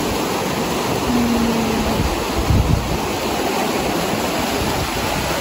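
Steady rushing of a flowing mountain stream, with a small low bump about two and a half seconds in.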